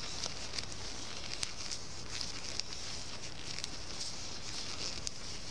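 Circular knitting needles clicking softly and yarn rustling as stitches are knit, a few faint irregular ticks over a steady hiss.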